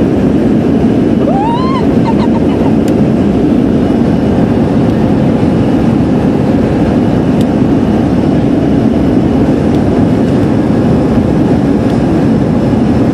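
Airliner engine and cabin noise heard from inside the cabin: a loud, steady rushing sound that does not change. About a second and a half in, a brief rising voice sounds over it.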